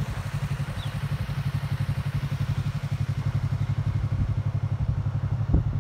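Motorcycle engine running steadily with a low, rapidly pulsing throb.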